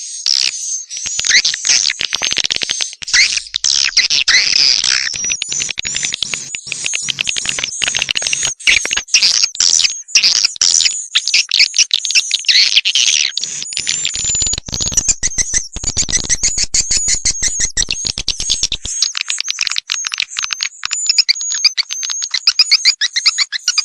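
Recorded swiftlet calls played as a lure sound for a swiftlet house: a dense, continuous twittering of high chirps and rapid clicking pulses.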